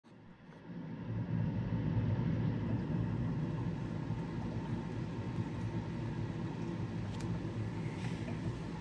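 Steady low hum of fish-room aquarium equipment, pumps and filtration running, with a faint hiss above it. It rises in over the first second and then holds even.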